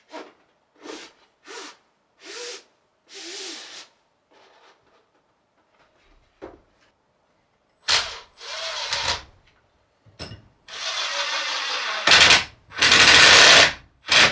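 Power drill running in a string of short bursts, then after a pause in longer, louder runs, its motor pitch shifting as it speeds up and slows.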